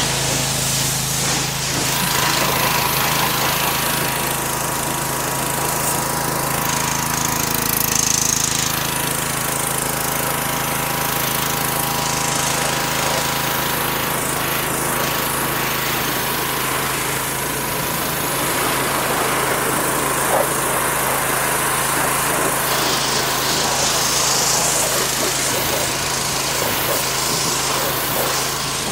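Pressure washer running steadily, its motor and pump droning under the hiss of the high-pressure water spray.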